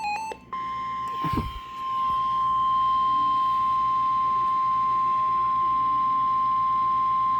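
NOAA Weather Radio warning alarm tone: one long, steady, loud tone at about 1050 Hz, which signals that a warning is about to be broadcast. It begins just after the end of a short run of beeps, and a brief thump comes about a second in.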